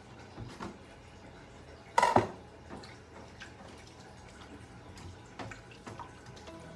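Hands cleaning a large raw squid on a ceramic plate: wet handling sounds and scattered small knocks, with a louder double knock against the plate about two seconds in.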